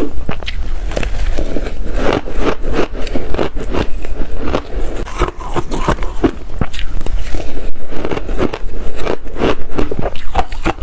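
Close-miked eating: a person chewing big mouthfuls of food, a quick, continuous run of wet clicks, smacks and crunches, several a second.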